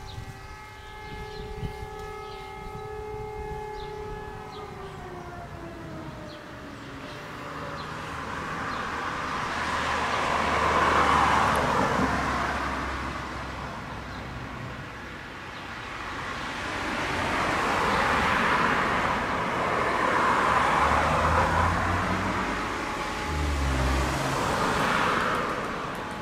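Fire brigade alarm siren holding a steady tone, then winding down in pitch and fading out about four to seven seconds in. After it, cars pass by one after another, their road noise swelling and fading three times.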